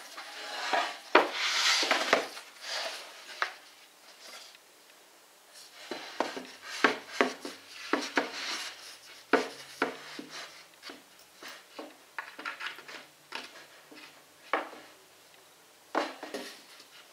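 Laminated particleboard bookcase panels being lifted, slid and stood on edge on carpet: a scraping rush about a second in, then a scattered run of light knocks and taps as the boards are handled and lined up.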